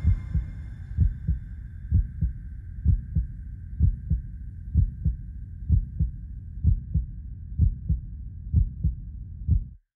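Heartbeat sound effect: low double thumps, lub-dub, about once a second, over a faint high steady tone that slowly fades. It cuts off suddenly near the end.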